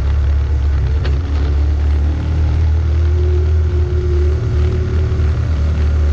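Off-road vehicle's engine running steadily with a low drone as it climbs a rough, rocky dirt trail, with a faint knock about a second in.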